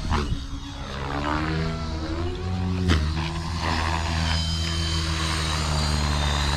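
Blade Fusion 550 electric RC helicopter in flight. Its main rotor and motor make a steady droning whine, and the tone sweeps up and down as the helicopter moves about.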